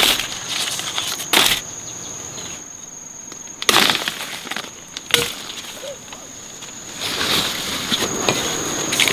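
A steady high insect drone, like crickets or cicadas, runs throughout. Three sharp knocks land about one and a half, three and a half, and five seconds in, and denser rustling picks up near the end.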